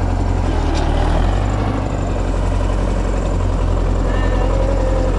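Belarus 510 tractor's diesel engine running steadily as it pulls a potato planter through the field.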